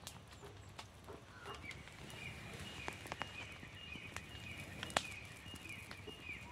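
Sharp crackles and snaps from dry grass and twigs, the loudest about five seconds in. From about a second and a half in, a small high chirping call repeats about twice a second.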